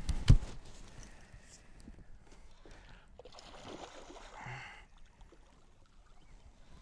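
Water splashing and swirling as a hooked northern pike thrashes at the surface beside the boat. A heavy thump comes just after the start, and a longer splash comes about three to four seconds in.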